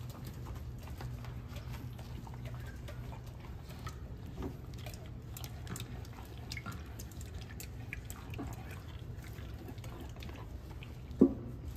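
French bulldogs moving about on puppy pads in a plastic playpen: faint scattered ticks and rustles over a steady low hum. One sharp thump comes near the end.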